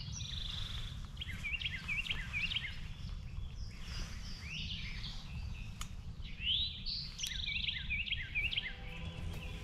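Songbirds singing: two song phrases, each a quick rising note followed by a run of short chirps, the first about a second in and the second near the end, over a steady low rumble.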